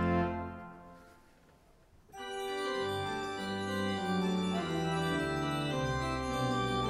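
Church pipe organ: a held chord is released and dies away in the room's reverberation, then about two seconds in the organ starts a new piece of sustained chords with moving lines.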